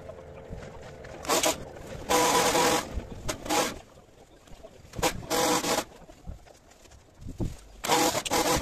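Powered hedge trimmer cutting a hedge in short bursts, its motor and blades going about five times for under a second each, with quieter gaps between.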